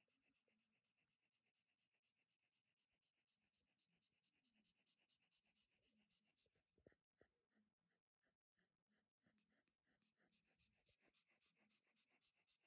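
Near silence: a sleeping puppy's very faint, slow snoring breaths, about one every second or two.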